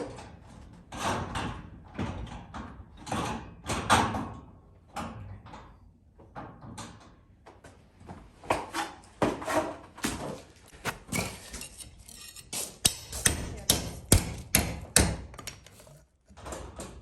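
Hammering on wood: scattered knocks and clatter, then a quick run of about a dozen hammer blows near the end.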